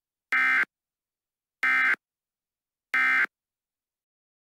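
Emergency Alert System end-of-message data tones: three short, identical bursts of digital SAME code a little over a second apart, signalling that the alert has ended.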